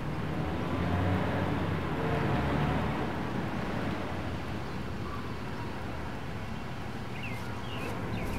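Steady outdoor background noise, like distant traffic, with a few short high chirps near the end.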